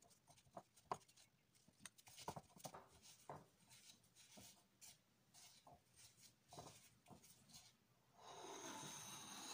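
Faint soft rubbing and scattered light taps as plastic-gloved hands toss beef cubes in flour in a glass bowl. A louder even hiss comes in for the last second or so.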